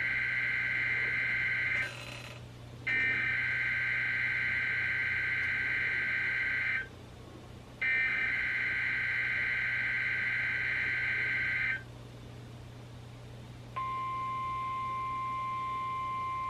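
NOAA Weather Radio SAME header for a Required Weekly Test: three long bursts of shrill two-tone digital data, the first ending about two seconds in. About two seconds after the last burst a steady 1050 Hz warning alarm tone starts and holds. It is heard through a weather radio's speaker.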